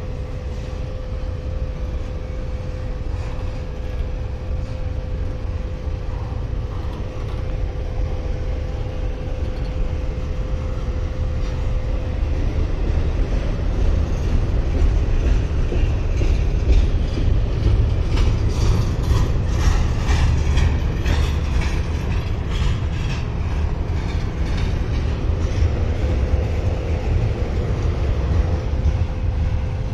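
Intermodal freight train climbing the grade as its cars roll past: a steady low rumble of wheels on rail, with a faint steady whine under it. In the second half it grows a little louder, with a run of rapid clicking and clanking.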